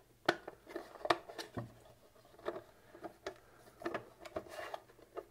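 Irregular light knocks, clicks and rubbing from a plasma ball's plastic base and glass globe being handled and fitted back together.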